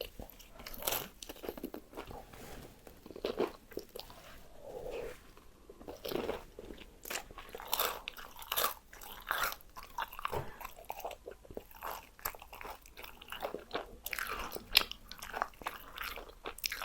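Crispy fried chicken being bitten and chewed close to the microphone: irregular crackly crunches of the fried coating, with chewing in between.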